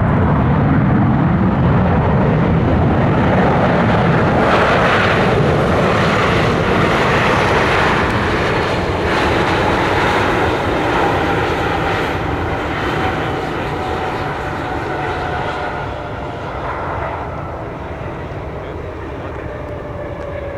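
Boeing 737-700's CFM56 turbofan engines running loud during the landing rollout, the noise easing off over the second half with a slowly falling whine as the engines spool down.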